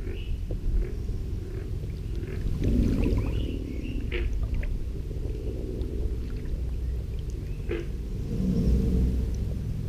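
American alligators bellowing: deep, rumbling mating calls from several alligators around the water, swelling about three seconds in and again near the end. A few short high chirps sound over the rumble.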